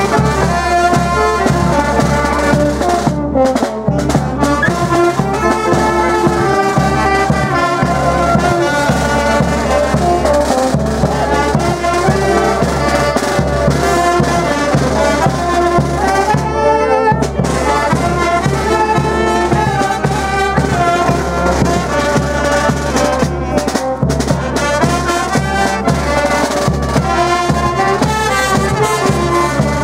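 Brass band with trumpets and drums playing a dance tune, loud and continuous.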